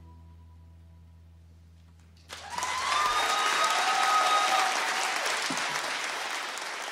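The last low notes of the band's final chord die away, then about two seconds in a theater audience breaks into loud applause with cheering, which slowly tapers off.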